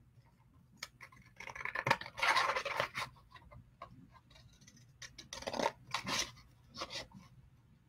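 Cereal-box cardboard scratching and rustling as it is handled, in a few short bursts; the longest and loudest comes about two seconds in.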